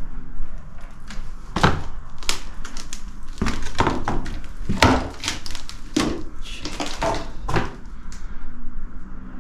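Footsteps knocking and crunching on a hard floor: a string of irregular steps and scuffs, some a second apart, some closer together.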